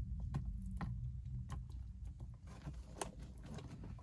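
Hands tearing cooked chicken and dropping the pieces into a dog bowl: scattered light clicks and taps over a steady low hum.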